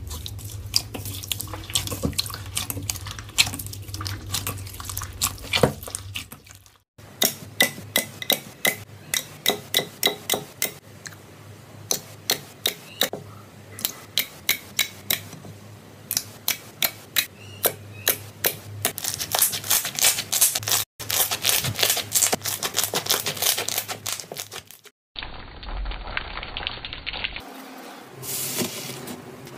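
Hands kneading and pressing slime in bowls: a run of wet, sticky clicks and pops, several a second. The sound changes abruptly a few times as one slime clip gives way to the next.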